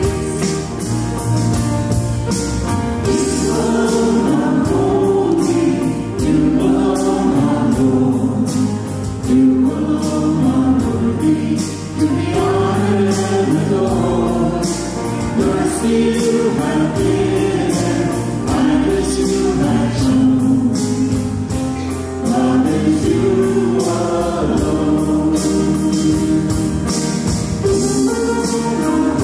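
A church choir sings an offertory hymn over a steady low accompaniment with a regular beat.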